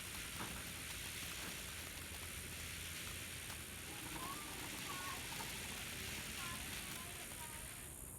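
Firework fountains spraying with a steady hiss that cuts off suddenly near the end as they burn out.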